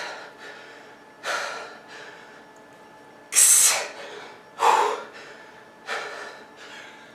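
A man breathing heavily between push-up reps, with four forceful breaths about a second or two apart: the hard breathing of someone straining near exhaustion.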